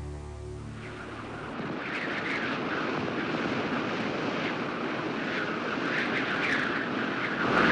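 Strong wind blowing in gusts, a rushing noise that builds about a second in and grows louder toward the end. Guitar music fades out at the start.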